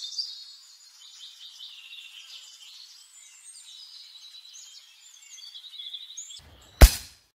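Small birds chirping and singing in quick, warbling phrases. Near the end a low whoosh leads into a single sharp, loud crack.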